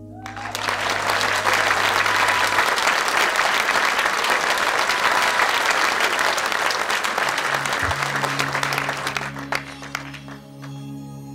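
Audience applauding, rising quickly at the start and dying away near the end. About seven and a half seconds in, a low sustained keyboard pad comes in under the applause, opening an ambient instrumental piece.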